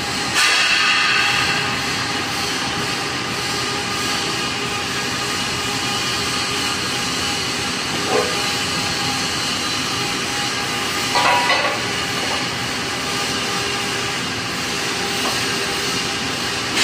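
Steady, loud hissing noise of machinery in a steel fabrication hall, with a couple of brief louder sounds about eight and eleven seconds in.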